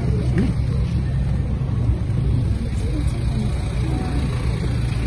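A vehicle engine running with a steady low rumble, with faint voices of people talking over it.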